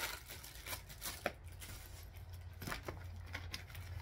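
Plastic packaging crinkling and rustling as it is handled, with scattered small clicks and taps, over a low steady hum.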